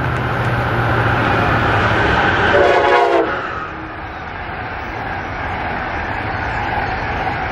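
Amtrak Northeast Regional passenger train hauled by an ACS-64 electric locomotive running through at speed, with steady wheel and rail noise. A short train horn blast sounds about two and a half seconds in and cuts off abruptly, then the passing cars keep rolling by.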